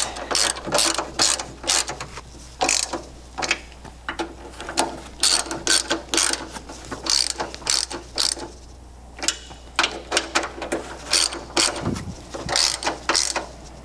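Hand ratchet wrench clicking in repeated runs as the shock cap nuts are tightened down, with a short pause a little past the middle.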